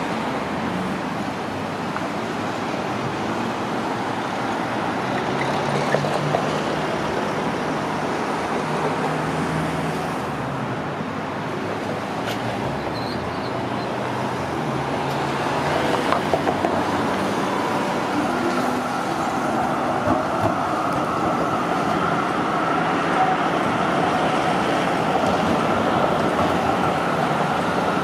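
Melbourne Z3-class tram running off along street tracks after pulling away from a stop, over steady road traffic noise. A few sharp clacks come about a fifth and about halfway through, and a faint steady whine joins in during the last third.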